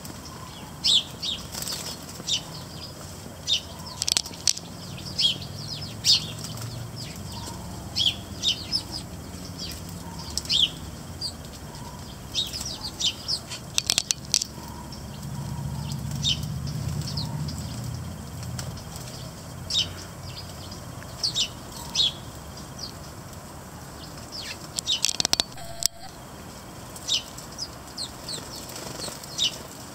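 A flock of house sparrows chirping busily at a seed feeder, short high chirps coming in quick clusters throughout, with the flutter of wings as birds land and take off. A low steady rumble sits underneath.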